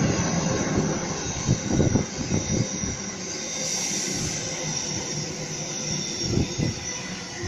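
Sydney Trains Waratah double-deck electric train running past on the nearest track: a steady rumble of wheels on rail with a high hiss. Two bursts of wheel clatter come about two seconds in and again near the end.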